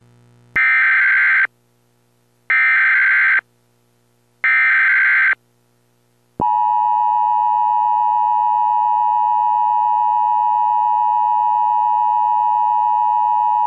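Emergency Alert System opening tones: three short bursts of digital data tones, each just under a second long and about a second apart, then, about six seconds in, the steady two-tone EAS attention signal begins. The data bursts are the SAME header that encodes the alert, here a tornado warning, and the attention signal announces that the spoken alert follows.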